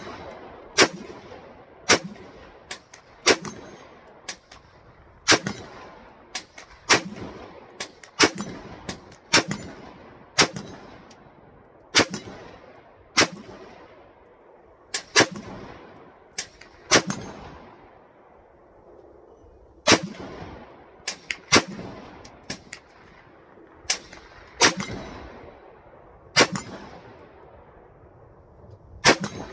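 AR-15 rifle firing semi-automatic, about one shot a second with a few quick doubles, each shot trailing off in an echo.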